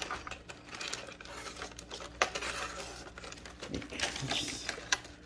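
Plastic seaweed-snack bag crinkling as a hand rummages in it, with a few sharp clicks along the way.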